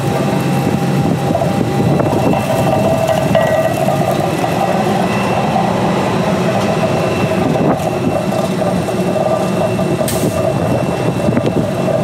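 Shot blasting machine running steadily, its electric motor giving a continuous mechanical drone with a faint high whine over it.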